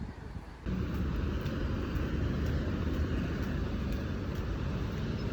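Steady rumble of street traffic, starting abruptly about half a second in.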